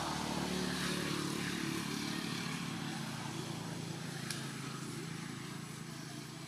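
Engine of a motor vehicle passing by, loudest about a second in and then slowly fading.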